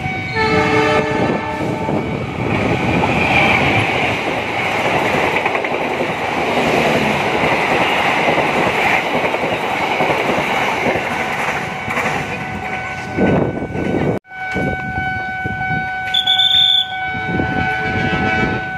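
Diesel locomotive horn blast as the train approaches, then a passenger train passing close by, its wheels clattering over the rail joints. After a break about 14 seconds in, a short high-pitched horn toot.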